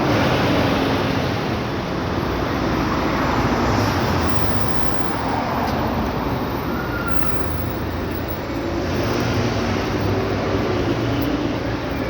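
Steady city street traffic noise, a dense even rumble and hiss of passing vehicles.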